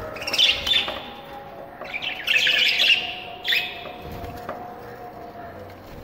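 Budgerigars chirping and chattering in three short bursts: at the start, for about a second from two seconds in, and briefly at about three and a half seconds.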